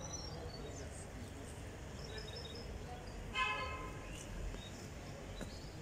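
Outdoor garden ambience with faint high bird chirps now and then. About three and a half seconds in, a short, steady-pitched tone stands out briefly as the loudest sound.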